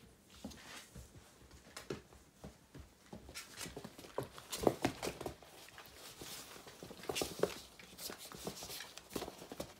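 Two puppies play-fighting: scuffling, with paws and claws tapping and scrabbling on the floor, busier and louder from about three seconds in.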